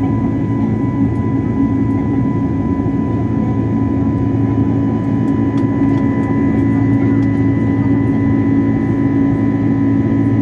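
Airbus A320neo cabin noise heard from a window seat over the wing as the airliner climbs after takeoff: the turbofan engines and airflow make a steady drone with a constant low hum and fainter higher tones, unchanging throughout.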